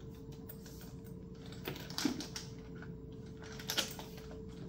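Light clicks and ticks of a Louis Vuitton Soft Trunk Wallet's leather shoulder strap and its clasps being handled and adjusted, with a few sharper clicks around two seconds in and near the end. A faint steady hum lies underneath.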